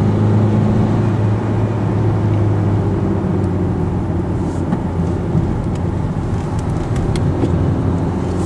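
Steady engine hum and tyre noise inside the cabin of a Renault Captur driving at road speed.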